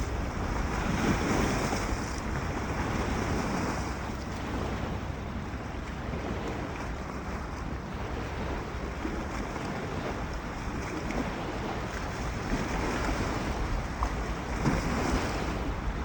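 Wind-driven lake waves breaking and washing ashore in swells every few seconds, with a low rumble of wind buffeting the microphone.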